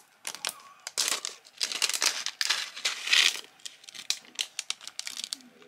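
Plastic packaging crinkling and rustling as it is handled and opened, in a run of irregular rustles and sharp little clicks, loudest a little past the middle.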